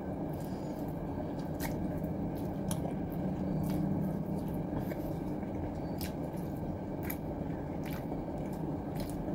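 A person chewing a mouthful of fish close to the microphone: wet, squishy mouth sounds with scattered small clicks.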